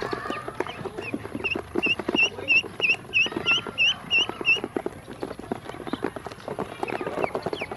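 Ducklings feeding from a plastic basin, their bills tapping rapidly on the plastic as they peck up feed. A run of about a dozen short high peeps, about three a second, comes from a duckling between about one and four and a half seconds in.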